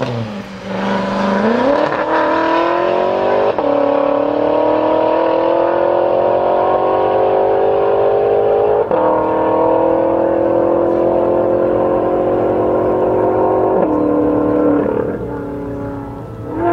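BMW M5 F10's twin-turbo V8 with a Meisterschaft race exhaust accelerating hard at full throttle. The engine pitch climbs steadily through each gear, with quick upshifts about 3.5, 9 and 14 seconds in, and the sound fades near the end.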